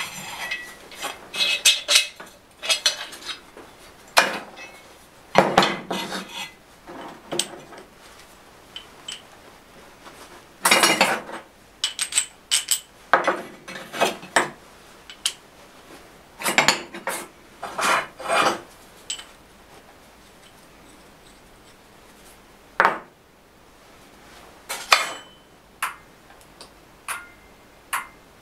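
Small metal tools and parts clinking and clattering as they are picked up, knocked together and set down on a workbench. The clatters come irregularly, with short quiet gaps between them.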